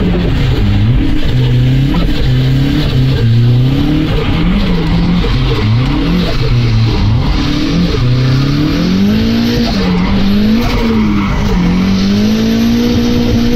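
Mazda MX-5's four-cylinder engine, heard from inside the cabin, revving up and down over and over as the car is driven hard through a cone course. Near the end it holds high revs.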